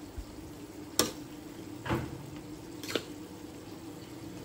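Metal spatula knocking and scraping against a wok while stir-frying rice, three strikes about a second apart, over a steady low hum.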